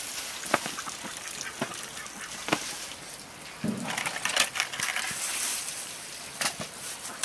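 Ducks quacking, heard mostly a little past the middle, with scattered sharp knocks.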